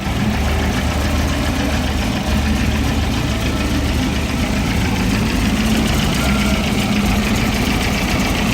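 Freshly reassembled turbocharged engine with a Garrett ball-bearing turbo idling steadily, with a loud cam.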